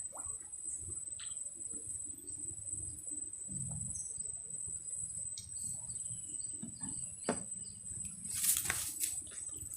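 Insects chirring in a steady, high-pitched drone over a low background rumble, with scattered small clicks and a brief rustling burst near the end.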